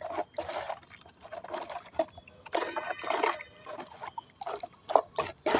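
A thin slurry of cement and white repair-polymer liquid being stirred in a container, in irregular wet swishes and scrapes.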